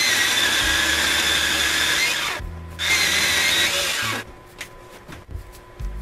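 Circular saw driving a Prazi Beam Cutter chain bar at full speed, ripping along a small log to cut off a slab. The loud cutting noise breaks off briefly about two and a half seconds in, runs again, and stops about four seconds in, followed by a few light knocks.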